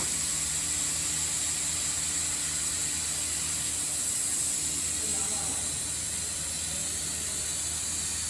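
A 300 W CO2 laser cutting machine running while cutting thick acrylic: a steady hiss over a low, even machine hum.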